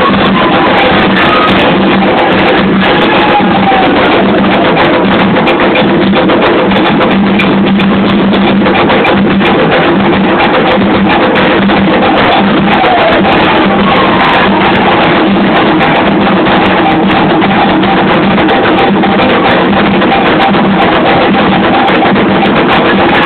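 Candomblé ritual music: hand drums beating steadily under group singing, loud and distorted.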